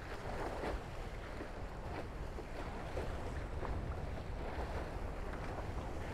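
Wind buffeting the microphone over water rushing and splashing past the hulls of a Tornado catamaran under sail, a steady rush with many short splashes of spray.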